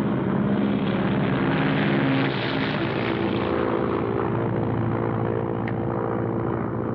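Single propeller airplane engine running at a steady drone, the plane under power for takeoff. The sound dips slightly a little over two seconds in, then carries on evenly.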